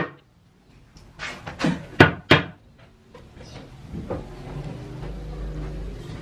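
Metal baking trays clanking against each other and the oven about five times in the first two and a half seconds, the loudest about 2 s in. Then a steady low rumble for the rest.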